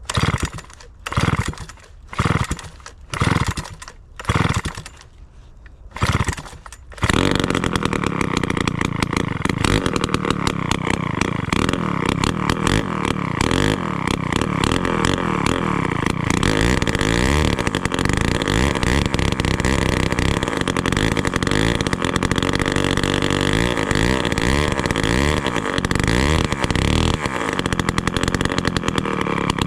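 A 1957 Danarm Fury chainsaw's Villiers 5F 98cc two-stroke engine being pull-started from stone cold on choke. About six short bursts come roughly a second apart; then it catches about seven seconds in and keeps running, the revs rising and falling.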